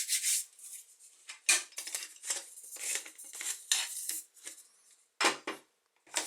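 A boilie extruder gun being loaded with dough and handled, giving irregular clinks, knocks and scrapes, with a few sharper knocks among them.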